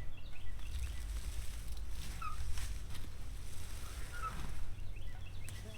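Short bird calls, like farm fowl, a few scattered and some in quick little runs, over a steady low rumble.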